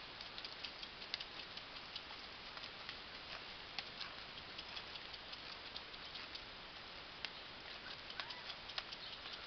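A horse's hooves on arena sand: a soft, irregular patter with scattered light clicks over a steady hiss.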